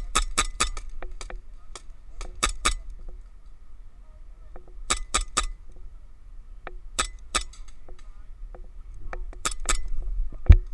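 Airsoft guns firing in short bursts of sharp cracks, a burst every two seconds or so. A heavy thump near the end.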